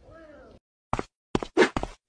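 A hand slapping sharply several times in quick, uneven succession, starting about a second in.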